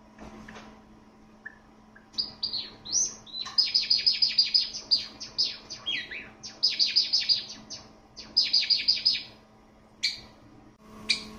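White Java sparrow singing: after a quiet start, a run of high chirps and clicks about two seconds in builds into several quick trills of rapidly repeated notes, ending about two seconds before the close.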